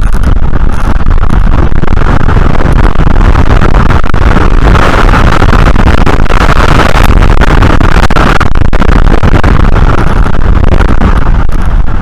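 Strong wind buffeting the nest camera's microphone: a loud, steady rumble with a gust that swells in the middle and then eases.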